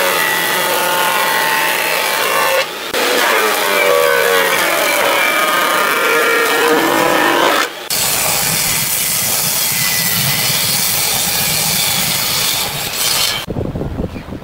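Overhead planing machine cutting a pine board, a loud rough rasping of the cutter head with a short break about two and a half seconds in. About eight seconds in it gives way to a table saw running and trimming a glued-up panel of pine pieces; the cutting noise stops near the end, leaving a low hum.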